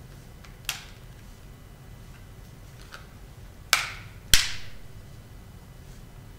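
Plastic back cover of a Samsung Galaxy S2 LTE being pressed back onto the phone, clicking into place: a small click under a second in, then two sharp, loud snaps about half a second apart near the middle.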